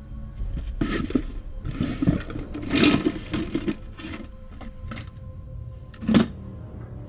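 Rustling and knocking of objects being lifted out of a suitcase and set into a fabric storage bin, in irregular bursts, with a sharp thump about six seconds in.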